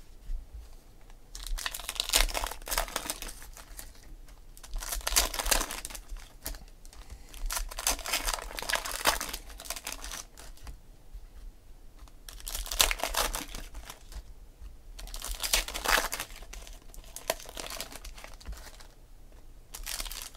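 Foil wrappers of Panini Select football card packs being torn open and crinkled by hand, in repeated bursts a few seconds apart.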